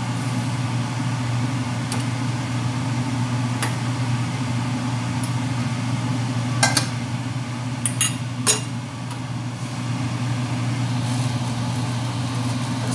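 Stainless-steel pots and lids being handled, giving a few scattered clinks and knocks, the loudest about two-thirds of the way through, over a steady low kitchen hum.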